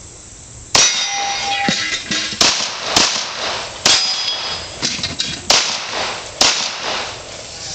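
A string of about six pistol shots fired at steel plate targets, irregularly spaced, each followed by the clang and ring of steel as a plate is struck.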